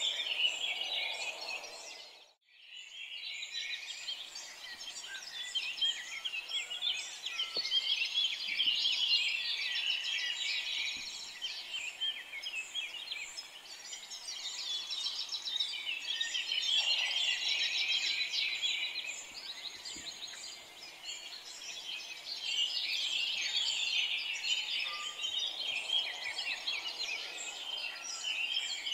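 A dense chorus of many small birds chirping and trilling together, with a brief drop-out about two seconds in.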